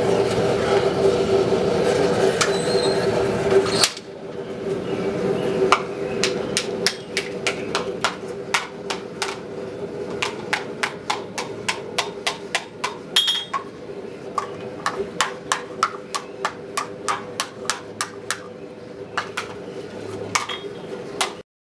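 A gas forge's burner running with a steady drone. About four seconds in, a blacksmith's hammer starts striking hot steel on an anvil, about two to three blows a second, some blows ringing, with the forge drone continuing underneath.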